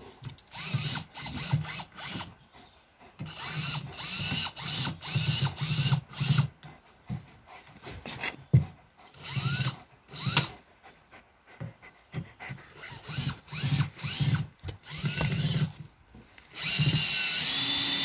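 Cordless drill driver driving galvanized screws into timber. It starts with many short trigger pulses, each spinning up and winding down, then runs steadily for about two seconds near the end as a screw goes home.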